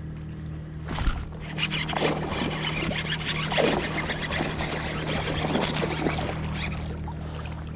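Water splashing: a sharp splash about a second in, then several seconds of choppy splashing that dies down near the end.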